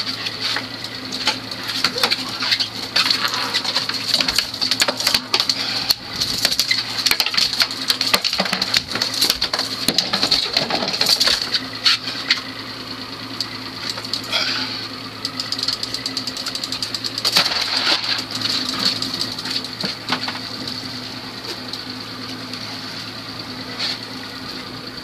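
Trolling reels clicking and ratcheting in rapid, irregular runs as hooked fish are reeled in. Under them is the steady hum of idling outboard engines.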